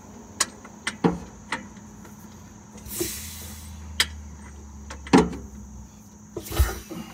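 Scattered metal clicks and knocks as a Detroit Diesel 8V71 two-stroke diesel is turned over slowly by hand for an inspection of its cylinder ports. A short hiss comes about three seconds in and a dull thump near the end.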